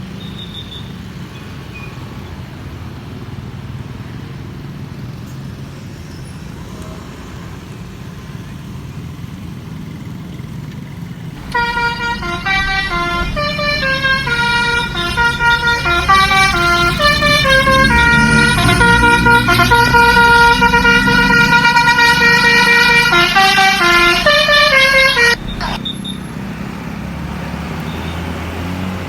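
Basuri bus horn, the multi-tone musical 'telolet' horn, playing a very loud melody of stepped notes for about fourteen seconds, starting about eleven seconds in and cutting off suddenly. Before and after it there is only a steady low vehicle rumble of the jammed traffic.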